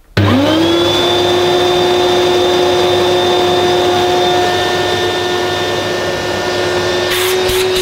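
1984 Hoover Portapower S1126 vacuum cleaner switched on: its motor spins up within about a second to a steady whine and runs on. Near the end, a fast rattle of clicks joins in. It doesn't sound too bad, though the machine could possibly do with being serviced.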